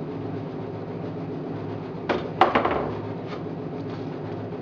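A quick cluster of wooden knocks and a clack about two seconds in, as the box-jointed pine end board of a hive body is worked loose from its corner joints, with a couple of faint taps after, over a steady low hum.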